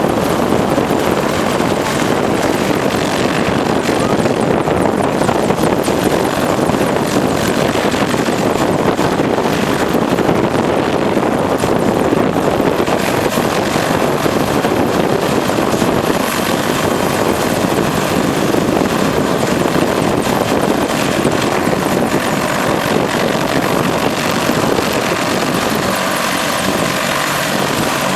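Boeing AH-64A Apache attack helicopter's rotor and engines running loudly and steadily during takeoff, a dense continuous rotor noise. A faint high whine comes in about halfway through.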